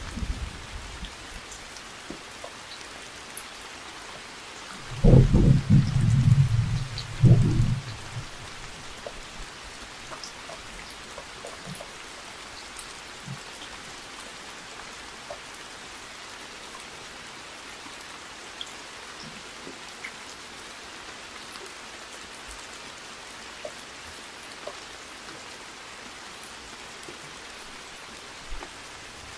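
Steady rain hiss with scattered ticks of single drops. About five seconds in, a low rumble of thunder swells twice over some three seconds and fades.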